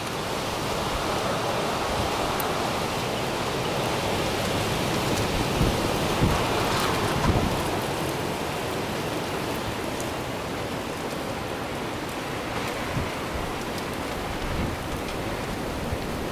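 Blizzard wind blowing hard and steadily, swelling now and then in gusts, with wind buffeting the microphone.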